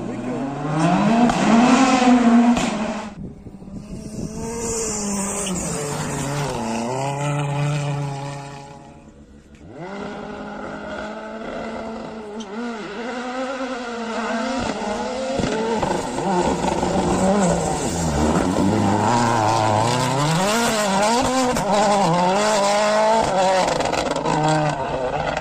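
Ford rally car engine at high revs, its pitch rising and falling again and again with throttle and gear changes. The sound is several short passes cut together, with sudden breaks about 3 and 9.5 seconds in.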